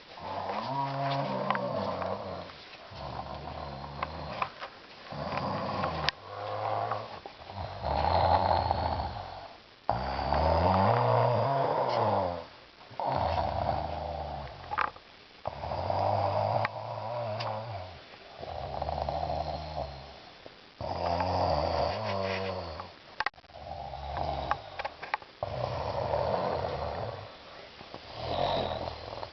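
Steady snoring, one snore about every two seconds, repeating over and over.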